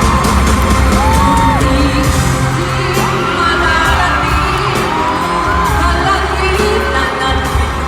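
Live pop music: a singer holding long notes with vibrato over a full band with heavy bass and cymbal hits, with whoops from the audience.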